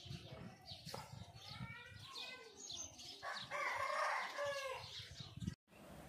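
Aseel rooster crowing: one call about a second and a half long just past the middle, the loudest sound, after a few shorter calls. The sound cuts off suddenly near the end.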